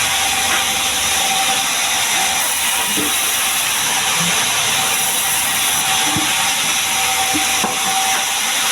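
Large sawmill saw running: a loud, steady hiss with a thin, steady whine through it.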